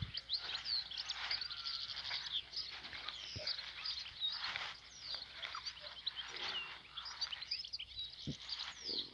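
Several small birds singing together: a dense chorus of quick, high chirps and short twittering phrases. Two soft low thumps, one about a third of the way in and one near the end.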